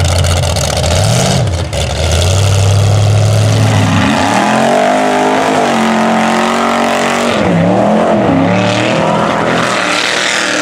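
Mud trucks' engines revving as their big tires churn through a mud pit. The first engine revs up and down twice, then holds a steady note; about four seconds in a second truck takes over, revving higher, with its pitch swinging up and down.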